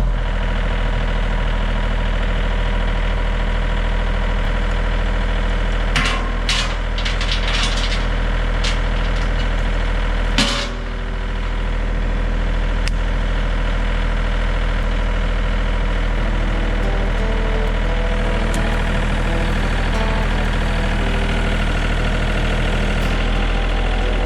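Two-stroke chainsaw engine idling steadily, with a few sharp knocks and cracks between about six and eight seconds in and one more about ten and a half seconds in.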